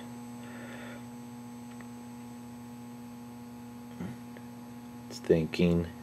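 Steady electrical hum from a gas furnace's energized controls during a call for heat, with the inducer motor disconnected and silent; a faint click about four seconds in.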